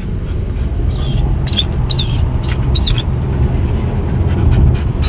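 Low road and tyre rumble inside an electric car's cabin as it speeds up, building slightly. About one to three seconds in, a Samoyed gives several short, high whines.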